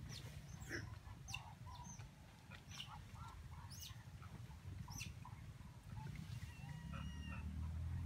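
Birds calling: a string of short sharp chirps and clucking calls, with a longer held call near the end, over a steady low rumble.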